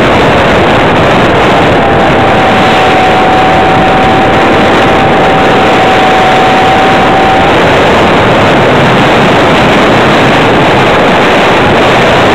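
Onboard-camera audio from a large RC model tug plane in flight: a loud, steady rush of engine and air noise, with a thin steady whine that stops about seven seconds in.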